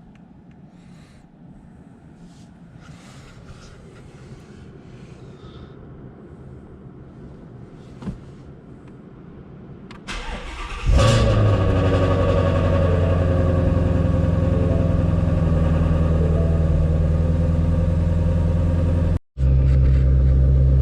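Ford Mustang Shelby GT350's 5.2-litre Voodoo flat-plane-crank V8 cranked and started about ten seconds in, after faint handling noises and a single click. It then runs steadily at idle on fresh oil after an oil change, and the sound drops out for a moment near the end.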